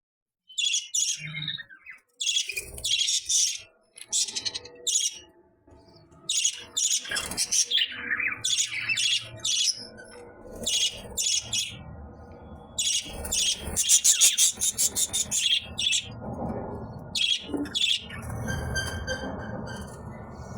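Caged bird calling in repeated short, high chirps and squawks, in quick runs separated by brief pauses.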